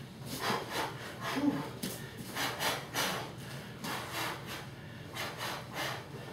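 A person panting hard with rasping breaths, about two to three a second: out of breath from the exertion of performing a karate form at full power twice in a row.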